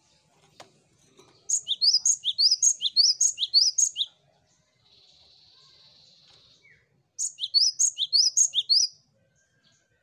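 Cinereous tit singing two bouts of its song, a quick two-note phrase repeated about three times a second. There is a short pause between the bouts, and a faint steady hiss fills it.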